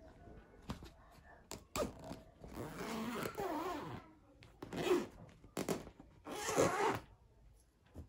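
Zipper of a fabric storage bag being pulled shut around the lid in four runs, the longest about a second and a half, with a few light clicks of handling before them.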